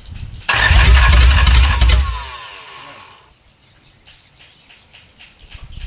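Starter motor cranking a six-cylinder Volvo diesel engine that has only two of its six glow plugs working. It cranks hard for about a second and a half, then winds down with a falling whine and does not keep running.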